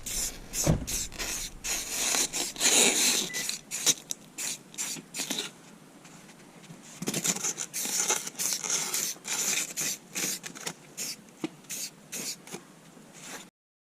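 Rust-Oleum paint and primer being applied in a run of short, hissing strokes, with a quieter pause in the middle.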